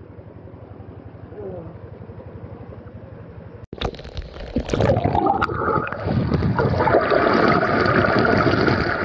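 Quiet, muffled water sound for the first few seconds; then, after a sudden cut, loud rushing and splashing water in a tubewell bathing tank.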